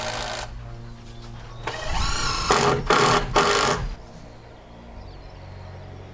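Cordless drill driving a screw into the timber beam: a whirring run with its pitch wavering, then three short, loud trigger pulls, stopping about four seconds in. Background music runs underneath.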